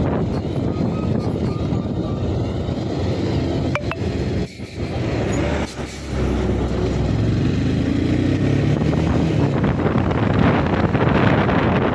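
Wind buffeting the microphone over the running engine of a Bajaj Pulsar NS160 motorcycle, with a heavy truck close ahead. The wind noise drops briefly about halfway through as the bike slows behind the truck, then builds again as it pulls out to pass.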